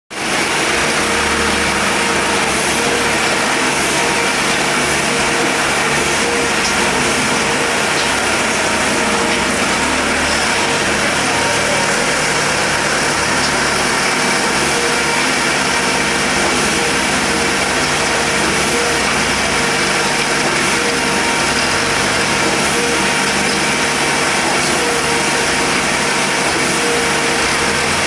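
Topworld C7 truck-mounted concrete mixer pump running steadily at work, its engine and mixer giving a loud, even machine noise with a few steady tones.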